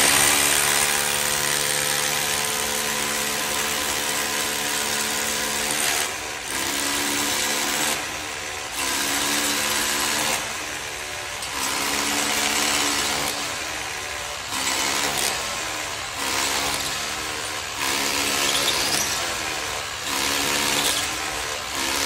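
FLEX 24V cordless SDS Plus rotary hammer drilling into a concrete floor: a loud, continuous hammering rattle with a steady motor whine. From about six seconds in it dips briefly several times as the bit bores the anchor hole.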